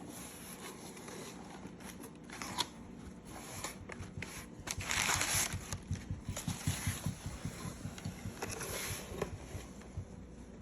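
Product packaging being cut and pulled open, with crackling and rustling. The loudest crinkle comes about five seconds in, among scattered clicks and soft handling knocks.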